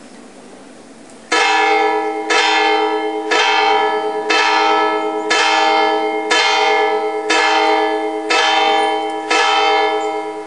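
A bell tolling, struck nine times at about one stroke a second from just over a second in, each stroke at the same pitch and ringing on into the next.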